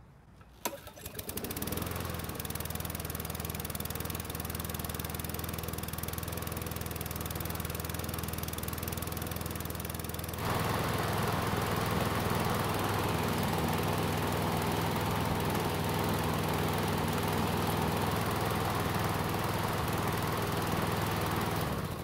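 Craftsman push mower's small engine starting about a second in and then running steadily on its newly fitted carburetor, at a running speed a bit slow for the owner's taste. It sounds louder and brighter from about halfway through, with the engine note unchanged.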